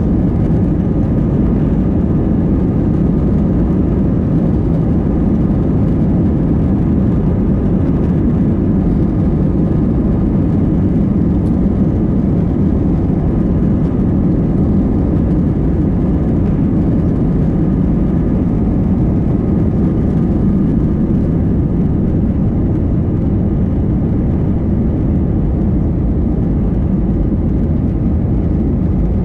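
Airbus A320 passenger cabin on the climb after takeoff: steady jet engine and airflow roar, with a faint engine whine above it.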